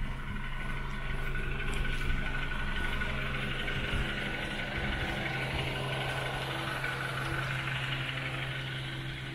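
A machine running steadily: a constant low hum with a hiss above it.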